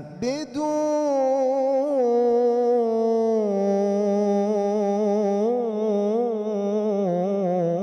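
A young man's solo voice chanting an Egyptian Islamic ibtihal (devotional hymn), drawing one syllable out into a long held note with small ornamental turns in pitch, after a quick breath at the start.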